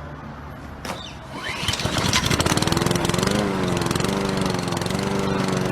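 Small lawn mower engine being started: a rising whirr as it is pulled over, then it catches about two seconds in and runs steadily.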